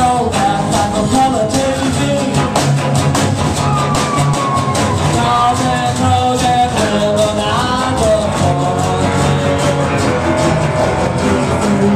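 Live rock and roll band: an acoustic guitar strummed steadily alongside a second guitar, with a man singing.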